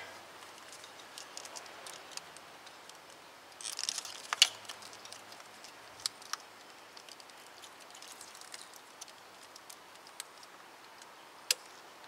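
Light clicks and rattles of fuel injector wiring connectors being squeezed and pried off with a small screwdriver. There is a short clatter about four seconds in, a few faint ticks after it, and a single sharp click near the end.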